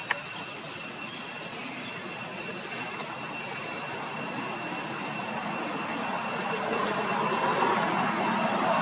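Steady rushing noise of a passing vehicle that slowly grows louder toward the end, with a steady high-pitched whine throughout and one short click at the very start.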